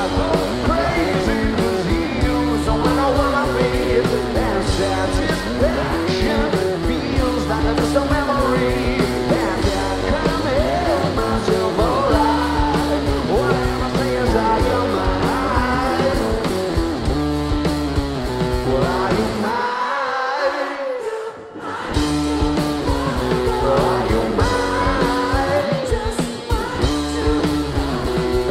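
Live rock band playing: electric guitars, bass and drums with singing. About two-thirds of the way through, the bass and drums drop out for a second or two, then the full band crashes back in.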